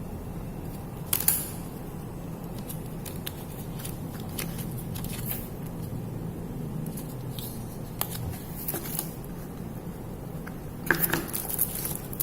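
Hands handling paper booklets and box packaging: scattered rustles and light clicks over a steady low hum, with a louder burst of handling about a second in and again near the end.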